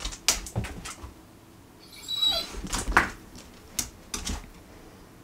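German Shorthaired Pointer making uneasy sounds at his reflection: a brief high whine about two seconds in, then a single short, sharp bark, among light clicks of claws on a tile floor.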